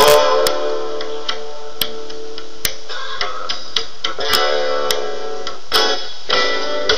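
Music: a guitar plucking notes over held chords.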